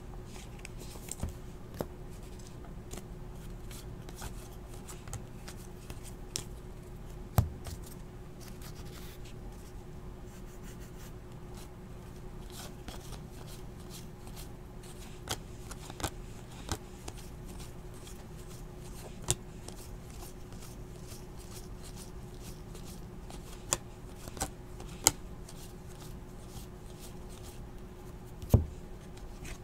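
Trading cards and packs being handled and sorted: quiet card-on-card shuffling with about a dozen sharp clicks and taps scattered through, over a steady low hum.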